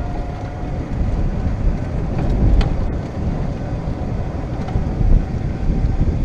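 Golf cart driving along, with wind buffeting the microphone over a low, uneven rumble from the moving cart.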